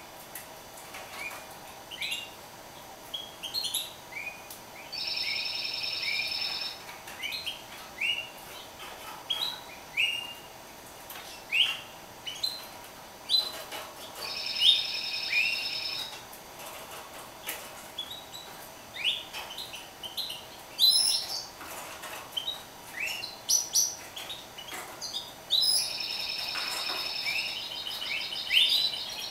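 Caged mule, a canary–finch hybrid, singing: many short rising chirps and twitters, with three longer held trills of one to three seconds each, about five, fourteen and twenty-six seconds in.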